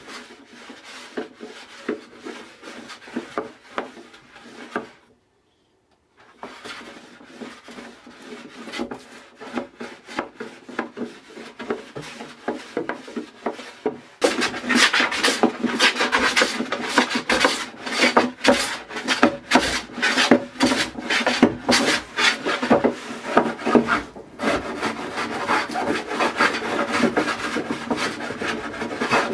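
A No. 4 hand plane with a freshly sharpened blade shaving a maple, cherry and walnut tabletop in repeated short scraping strokes, flattening its surface. There is a short pause about five seconds in, and from about halfway the strokes are louder and come faster.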